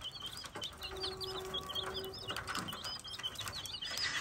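A group of chicks peeping, many short high calls overlapping in a steady chatter.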